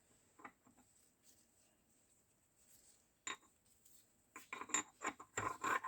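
Metal parts of a Zundapp KS 600 gearbox clinking and knocking as they are handled and fitted together: a few faint clicks, one sharp clink a little after three seconds, then a quick run of clinks near the end.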